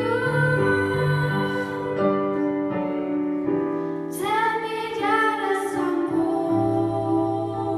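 Two young female voices singing a Danish song together into microphones, with held notes and vibrato, over an instrumental accompaniment of steady low chords.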